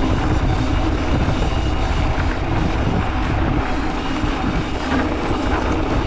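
Mountain bike running fast down a rough dirt descent: wind rushing over the camera microphone and the bike rattling over the bumpy ground.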